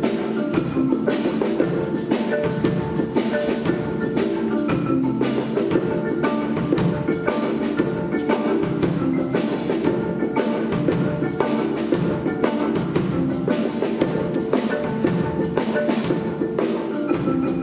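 Live percussion ensemble of marimbas and drums playing a fast, steady stream of mallet notes over drum strokes.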